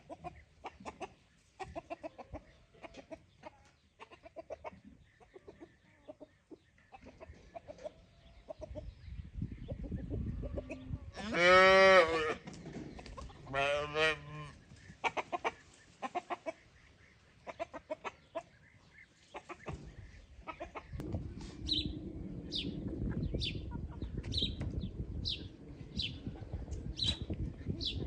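Chickens clucking, with one loud, longer call a little before halfway and a shorter one soon after. In the last third comes a run of short, high chirps, about two a second, over a low rumble.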